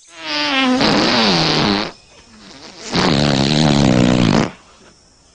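Two long, loud farts, each about a second and a half: the first slides down in pitch, the second is lower and wobbles.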